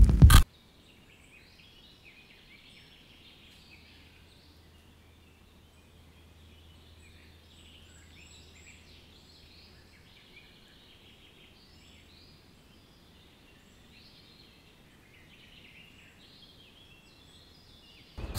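Faint forest ambience of many small birds chirping and trilling, after a loud music hit cuts off about half a second in. Music swells back in at the very end.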